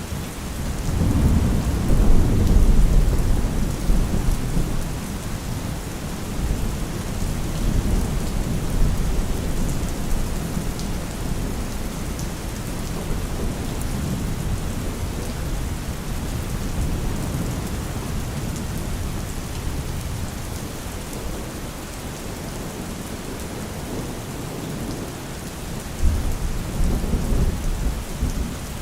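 Steady rain with distant thunder rumbling, a long low rumble building about a second in and another starting abruptly near the end.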